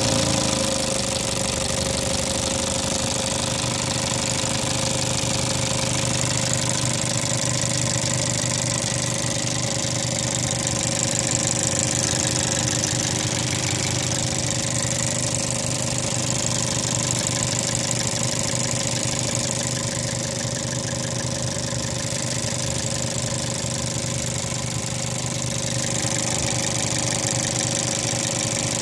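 Fiat car engine idling steadily, heard up close in the engine bay, with a steady high tone running over the engine note.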